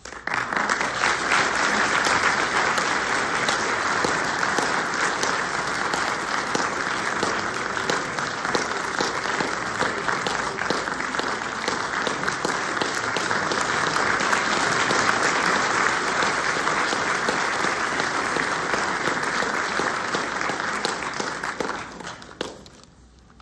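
Audience applauding: a dense round of clapping that starts suddenly and dies away about 22 seconds in.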